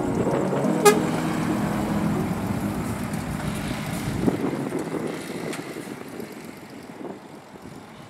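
Scania truck tractor unit's diesel engine running as it drives past and away, the sound fading steadily. A short sharp blip about a second in.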